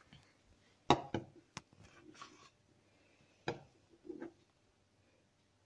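A few light knocks and clatters of kitchenware being handled by the stove, spread over the first four seconds, with a faint steady low hum underneath.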